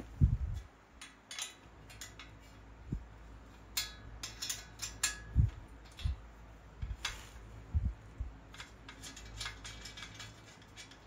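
Small metal clicks and clinks from hand tools and a bolt being worked out of a bicycle's front fork crown, with a few low knocks, becoming a run of quicker ticks near the end.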